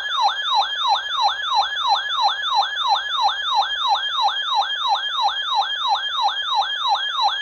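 Electronic siren in a rapid yelp, its pitch sweeping up and down about three times a second, that cuts off suddenly at the end.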